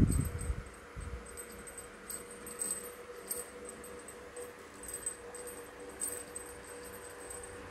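Small bell on a string-hung cat teaser toy tinkling in short, irregular jingles as a kitten bats and swings it. A few dull thumps near the start, and a faint steady hum underneath.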